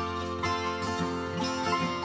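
Background music played on a plucked string instrument, with notes picked in a steady run.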